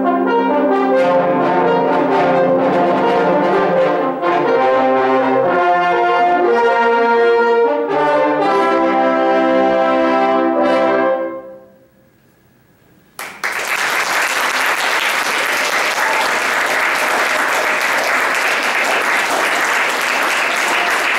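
A choir of about a dozen French horns playing sustained chords into a final held chord, which is cut off about eleven seconds in and dies away. After a second of quiet, the audience breaks into applause.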